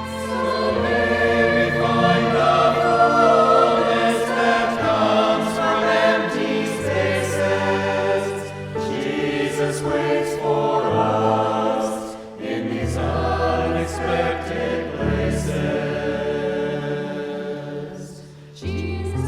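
Choral music: a choir singing sustained phrases over held low bass notes, with brief dips between phrases.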